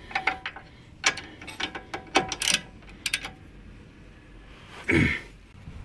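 Ratchet wrench clicking in short runs as a shock absorber's mounting nut is tightened down. One louder, short sound comes about five seconds in.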